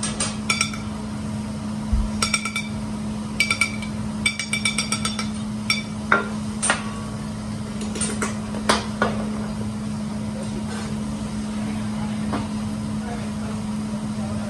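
Hibachi chef's metal spatula clinking against a metal seasoning shaker and the steel griddle: quick runs of ringing taps in the first half, then a few single clinks that stop about nine seconds in. A steady low hum runs underneath.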